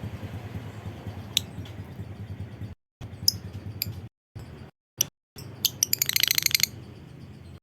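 Lovebird giving scattered sharp, high chirps, then a short rapid chattering trill (ngekek) about six seconds in, over a low steady hum.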